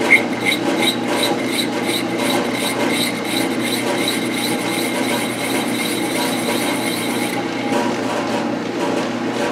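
Craftsman metal lathe running with the chuck turning, and a cutting tool scraping metal from the part's bore. A regular tick sounds about three times a second and stops about seven seconds in.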